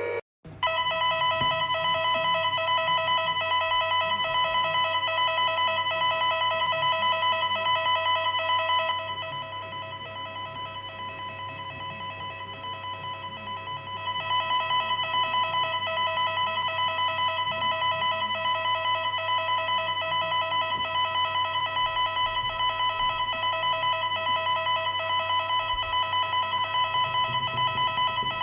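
Emergency alert alarm tone: two steady electronic tones sounding together, rapidly pulsed like a ringing bell. It drops in volume about nine seconds in and comes back up about five seconds later.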